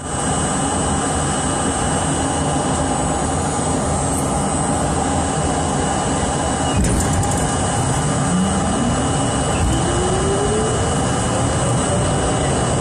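Subway train rumbling at the platform, then pulling out: a brief clatter about seven seconds in, then the traction motors whine rising steadily in pitch as the train accelerates.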